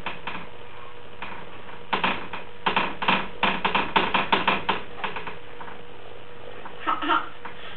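Small hands tapping and knocking on wooden banister spindles: a quick run of about a dozen light knocks lasting around three seconds. A short baby vocal sound comes near the end.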